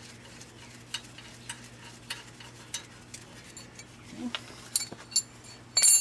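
Scattered light metal clicks and scrapes of a wrench working on a truck's front brake caliper slider bolt, growing busier toward the end and finishing in a sharp, ringing metal clink.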